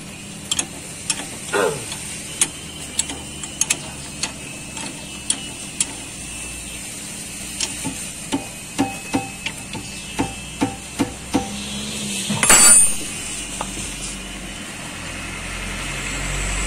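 A run of sharp metallic clicks from a hand tool working a bolt on a front disc-brake caliper, about two a second, with one louder clatter about twelve and a half seconds in. A low rumble rises near the end.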